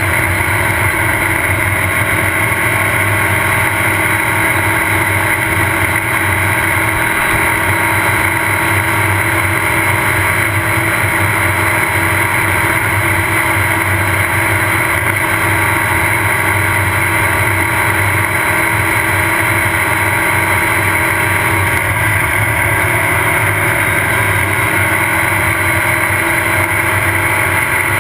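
Off-road race car engine running steadily at speed, heard from on board, with a constant haze of wind and road noise over the engine note.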